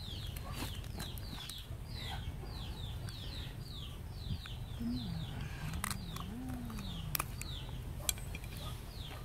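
Chicks peeping: a steady run of short, high, falling chirps, about two to three a second. A low wavering call comes in around the middle, and a few sharp clicks stand out.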